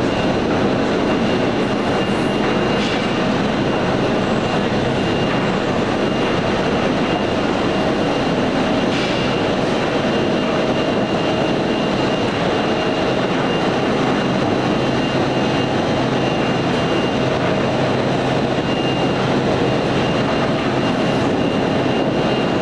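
Vegetable sorting line running: conveyors and a roller sizing table making a steady mechanical din, with a constant low hum and a faint high whine.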